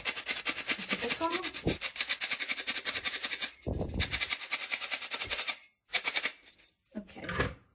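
Hand-squeezed stainless-steel flour sifter working flour and potato starch through its mesh: a fast, even run of rattling clicks from the squeeze-handle agitator, in bursts with a couple of short pauses.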